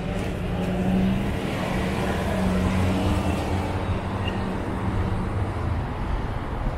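A motor vehicle engine running close by, a steady low hum that swells about a second in and again a little later, over general street traffic noise.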